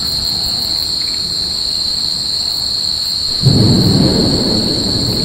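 Night insects, crickets or cicadas, keep up a steady high-pitched trill. About three and a half seconds in, a loud roll of thunder breaks in and rumbles on, slowly fading.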